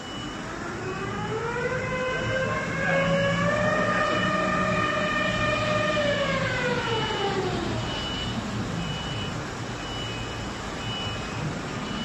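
Electric whine from an induction bar-heating line. It rises in pitch over the first few seconds, holds, then falls away by about eight seconds, over a steady low factory hum. A faint high tone comes and goes.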